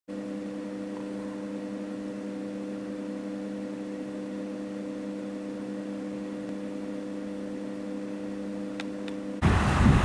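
A steady hum of a few fixed low tones, unchanging. About nine seconds in it cuts off suddenly, replaced by loud wind buffeting the microphone.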